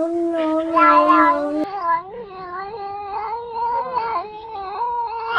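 A cat's long, drawn-out yowl held at one pitch, swelling about a second in, then cut off short. A second cat follows with a run of wavering meows that rise and dip in pitch.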